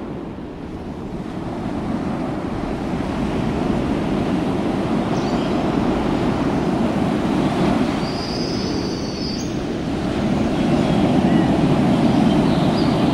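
A steady low rumble that gradually swells in loudness, with a brief high squeal about eight seconds in.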